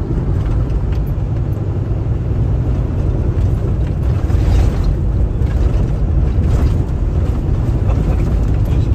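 Kenworth T680 semi-truck running at highway speed, heard from inside the cab: a steady low engine drone mixed with tyre and road noise.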